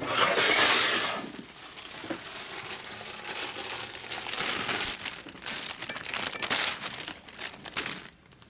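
Rustling, crinkling handling noise, loudest in the first second, with scattered light clicks as parts are handled.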